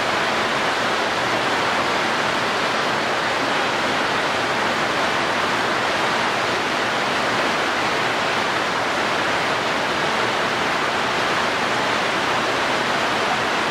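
A steady, even rushing noise with no breaks or changes in level.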